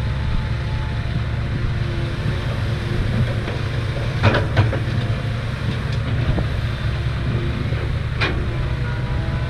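Komatsu hydraulic excavator's diesel engine running steadily with a low rumble. A couple of sharp knocks come about four seconds in, as the raised bucket is over the dump truck's bed, and another comes near the end as the bucket works the dirt.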